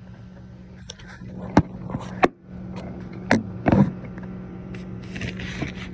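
Kitchen items being handled and set down on a counter: four sharp knocks and clatters between about one and a half and four seconds in, then plastic-bag rustling near the end, over a steady low hum.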